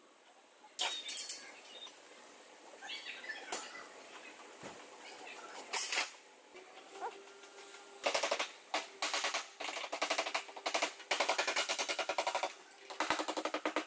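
Scattered clicks and knocks, then from about eight seconds in three bursts of rapid, evenly spaced sharp strikes, many a second, from a tool at work in car body repair, with a faint steady hum beneath.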